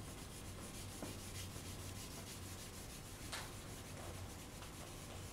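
White Conte crayon rubbed across toned drawing paper in repeated faint strokes, one stroke a little over three seconds in louder than the rest, over a low steady hum.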